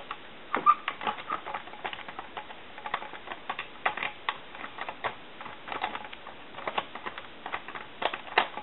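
Irregular light clicks and scratches, several a second, as the freshly soldered area of a telephone circuit board is scrubbed clean of solder flux.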